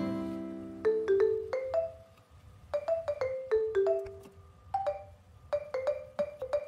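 Background music: a held chord fading out in the first second, then a light, sparse tune of single mallet-struck notes like a marimba, each ringing briefly before the next.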